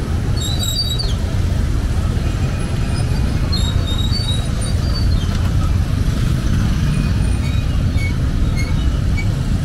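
Many small motorcycle engines of boda boda motorcycle taxis idling and pulling away in dense street traffic, a steady low rumble.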